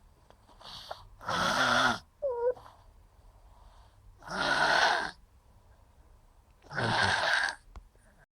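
Loud snoring: three heavy snores roughly every two and a half seconds, with a short high squeak just after the first one.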